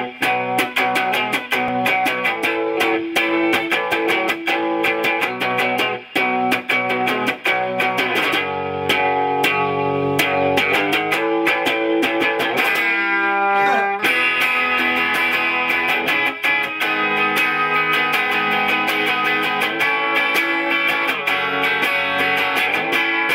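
Electric guitar played with a clean amplified tone, in fast picked and strummed notes, with a quick sliding run of falling notes about halfway through.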